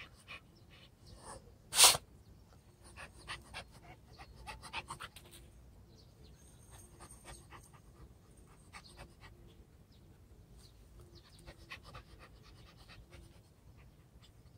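A puppy panting with its tongue out, amid scattered light ticks and scuffs. One sharp click about two seconds in is the loudest sound.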